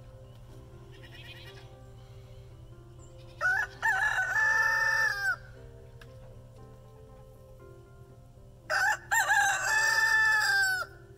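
A rooster crowing twice, each crow about two seconds long and a few seconds apart, over faint background music.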